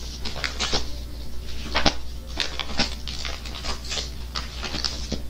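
Bible pages being leafed through: an irregular run of crisp paper rustles and flicks over a steady low hum.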